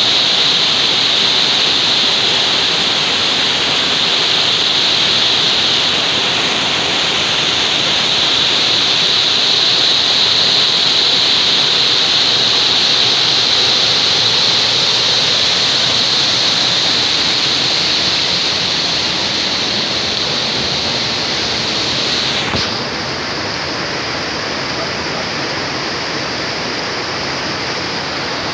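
A small waterfall pouring over rocks into a pool: a loud, steady rush of water. About 22 seconds in it turns a little quieter and duller.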